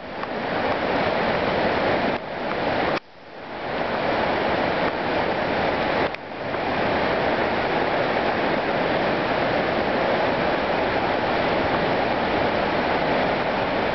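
Steady rush of running stream water. It cuts out suddenly a few times in the first half and swells back each time, then runs on evenly.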